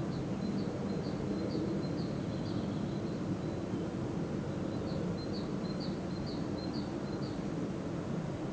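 A songbird repeating a short, high chirp about twice a second, in two runs: one at the start and another from about five seconds in. Under it runs the steady low hum of a paper mill.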